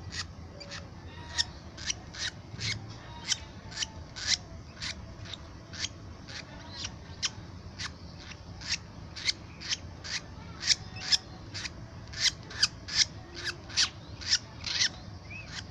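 Baby lovebird, about six weeks old, giving short raspy begging chirps about twice a second, coming a little faster in the second half, as it begs to be hand-fed.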